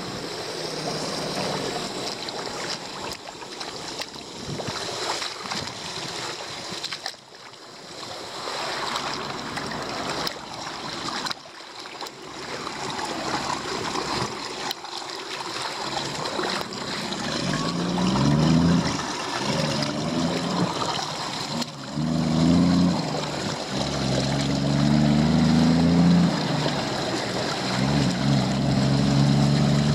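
Steady rush of rainwater flowing at a leaf-blocked roadside drain. From about halfway through, a motor vehicle's engine comes in with a rising hum and grows louder.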